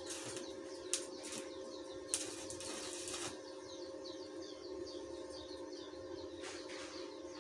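Stick (arc) welding on steel grill tubing: a crackling hiss of the arc for about a second, then again briefly near the end. Birds chirp in between.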